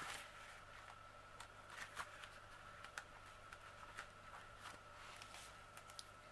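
Near silence: faint scattered ticks and rustles of paper and canvas being handled, over a steady faint hum.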